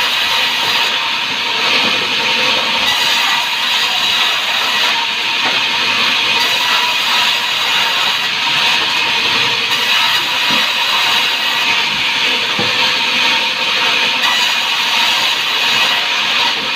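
Sawmill saw running and cutting through timber: a loud, steady hissing whine with no breaks.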